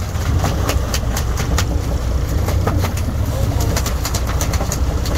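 Boat engine running steadily, with scattered sharp clicks and ticks over it.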